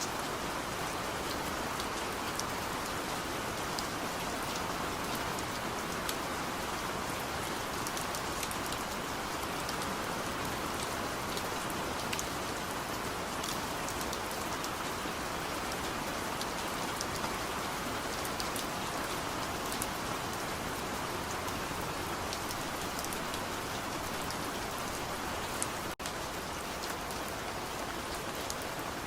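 Steady rain falling, with many individual drops ticking sharply over the even hiss. There is a momentary dropout near the end.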